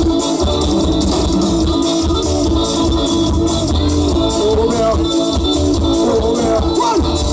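Live band playing with electric guitar, bass and drums keeping a steady beat, and a man singing into a microphone.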